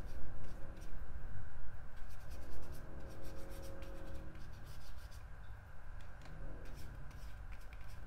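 Flat watercolour brush swept and dabbed across textured watercolour paper, a dry scratchy rubbing in a series of short strokes that come in two runs, one around the middle and one near the end.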